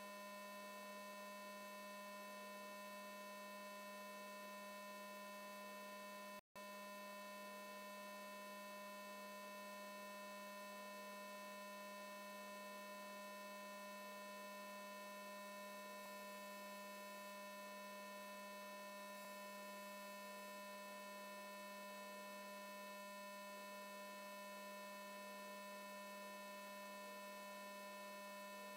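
Faint, steady electrical hum made of several fixed tones over a light hiss, cutting out for a split second about six and a half seconds in.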